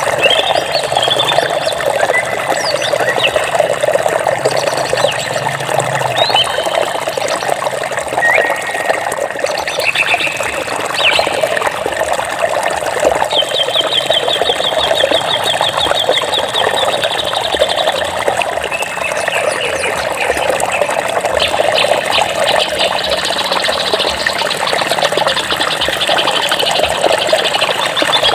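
Steady rush of flowing water, with several birds chirping and calling over it: short whistled notes and glides, a fast trill about halfway through, and quick ticking calls near the end.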